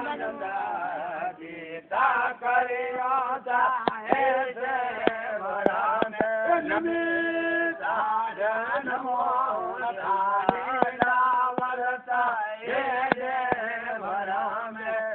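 A man chanting a devotional song in a sing-song melody over a steady low drone, holding one long note about halfway through. A few sharp clicks are heard along the way.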